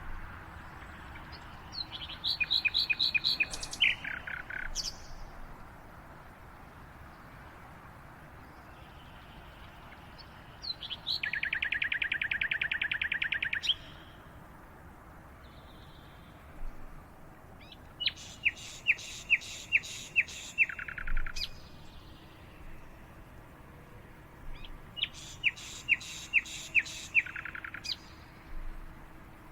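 A songbird singing four separate phrases. Each phrase is a fast run of repeated high notes, and some end with a lower falling note. A faint steady background sits underneath.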